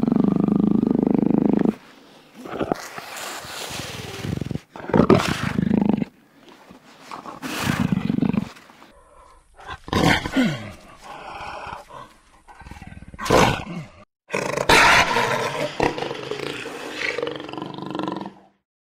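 Jaguar roaring: a long loud call at the start, then a series of separate roars with short gaps between them, some falling in pitch.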